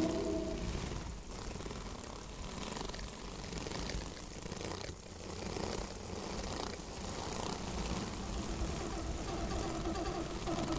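Solo bass clarinet in a contemporary piece: a held note dies away just after the start, then mostly toneless, breathy air sound with a low rumble, and about eight seconds in a low, rough, wavering tone comes in.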